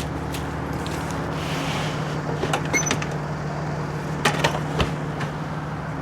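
Objects being handled and shifted while searching for something, giving several sharp clicks and knocks, clustered a couple of seconds in and again past the middle, over a steady low hum.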